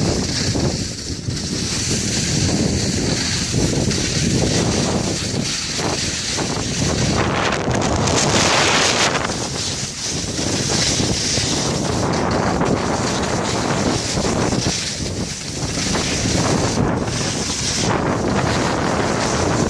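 Wind buffeting the phone's microphone in uneven gusts, with a steady high hiss behind it.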